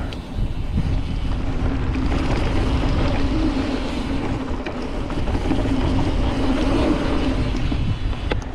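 Mountain bike descending a dirt trail: wind rushing over the microphone and tyre rumble, with a buzz that rises and falls in pitch and a few light knocks.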